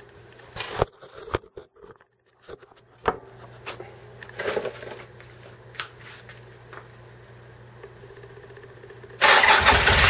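A few scattered knocks and clicks, then about nine seconds in the 1977 Harley-Davidson XLCR's V-twin engine starts up loudly and keeps running on its first fire.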